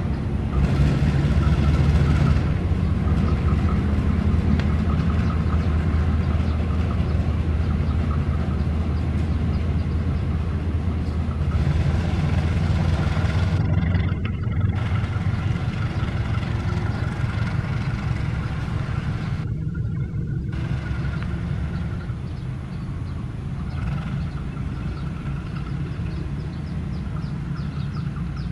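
Diesel-electric locomotive running light at low speed, its engine giving a steady low rumble that grows a little quieter from about halfway through as the locomotive moves away.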